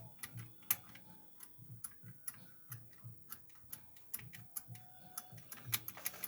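Small irregular metallic clicks and ticks of a pick and tension tool working the levers inside an ERA lever sash lock being picked, with soft low knocks of the lock being handled.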